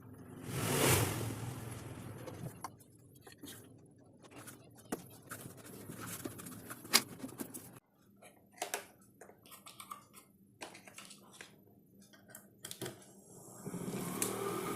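Clicks, knocks and scrapes of parts being handled. Near the end, a small 12 V DC mini-drill motor driving a homemade vacuum's fan starts up and runs with a steady hum.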